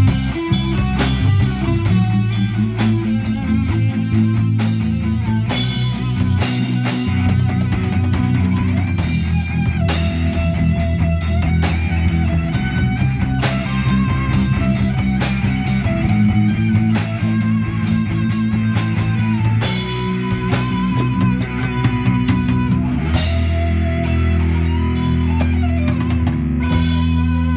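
A live rock band playing: electric guitars through amplifiers over a full drum kit.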